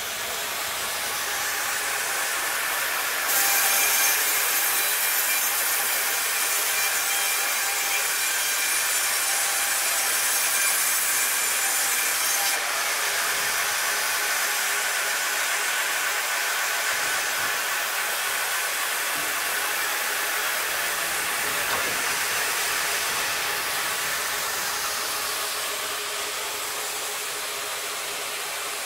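Bongioanni Artiglio CGH 1000 band saw running and cutting through a timber beam, a steady hissing saw noise. It is loudest and brightest, with a few steady high tones, from about 3 s to about 12 s in, then goes on more quietly as a steady machine hiss.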